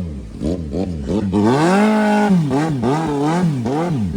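Kawasaki ZX-10R inline-four sport bike engine revved in quick throttle blips, its pitch rising and falling about twice a second, with one longer held rev about a second and a half in.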